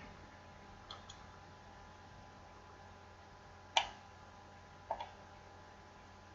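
A few computer mouse clicks: two faint ones about a second in, a sharper one near four seconds and a softer one a second later, over a faint steady hum.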